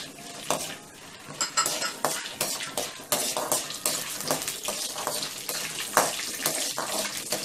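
Perforated steel spoon repeatedly scraping and clinking against an aluminium kadai as peanuts are stirred and fried in hot oil with dal and mustard seeds, over a steady sizzle.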